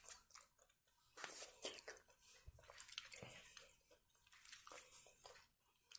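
Faint squishing and scraping of a spoon stirring mashed potatoes with corn and cheese in a paper bowl, in irregular strokes.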